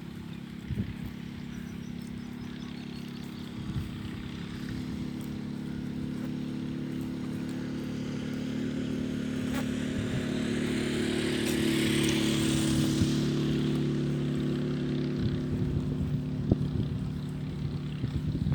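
An engine running steadily and passing by, growing louder to a peak about twelve seconds in, then easing off a little.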